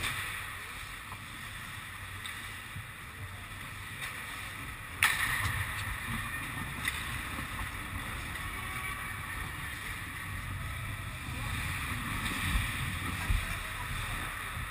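Ice hockey play in a rink: a steady scraping hiss of skate blades on the ice, with a sharp crack about five seconds in and a smaller knock a couple of seconds later.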